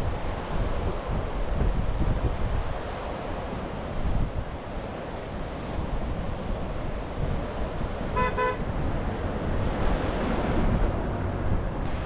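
Wind buffeting the microphone as a steady low rumble, with a short vehicle horn beep about eight seconds in.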